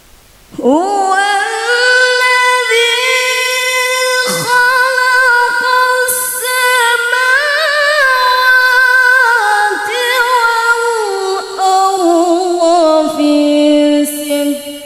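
A woman chanting an Arabic Quran recitation unaccompanied into a microphone, in long held notes ornamented with wavering turns. A new phrase begins about half a second in, and the pitch sinks lower toward the end.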